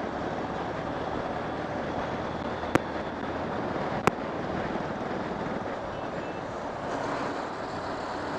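Wind rushing over the microphone while riding a Honda X-Blade single-cylinder motorcycle at cruising speed, with engine and tyre noise steady underneath. Two sharp clicks come about a second and a half apart near the middle.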